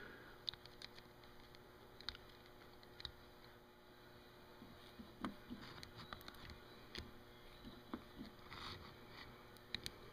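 Faint, scattered light clicks and soft squishing as a screwdriver tip pushes grease between the steel rollers of a tapered roller bearing, hand-packing it.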